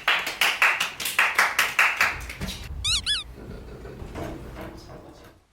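A quick run of sharp hits, about four or five a second for two and a half seconds, then a short burst of high, quickly repeated squeaky chirps.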